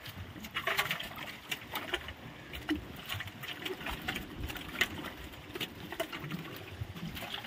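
Water splashing and sloshing, with many irregular small clicks and knocks scattered throughout.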